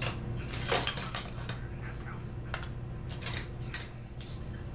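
Small metal engine parts clinking and clicking as they are handled on a workbench: a quick flurry of clinks in the first second and a half, then a few scattered single clicks. A steady low hum runs underneath.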